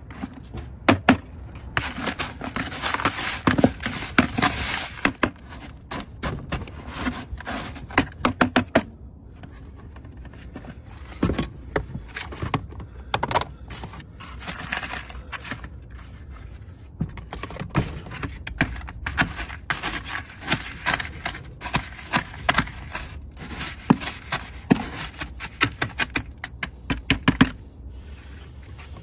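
White plastic bucket being handled and tipped, with rapid clicking, crackling and scraping from the green ferrous sulfate crystals inside it. The clicking comes in two long spells with a quieter stretch between them.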